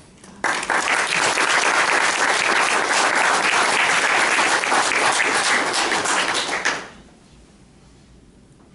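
Audience applauding. The clapping starts suddenly about half a second in, holds steady for about six seconds, then dies away quickly.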